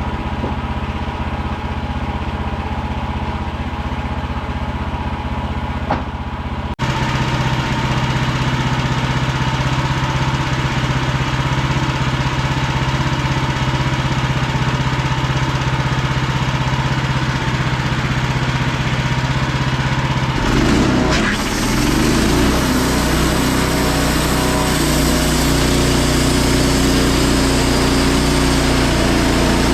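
Sawmill's gas engine running steadily. Near 7 s it abruptly gets louder and brighter, and about 20 s in it changes again to a louder, fuller sound that holds to the end.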